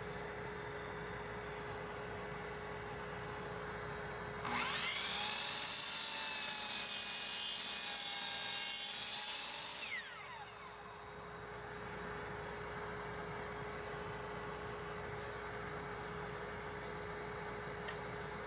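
Electric miter saw started about four seconds in: its motor spins up with a rising whine and the blade cuts through a wooden block for about five seconds. The saw is then switched off and winds down with a falling whine. A steady background hum runs underneath, with a small click near the end.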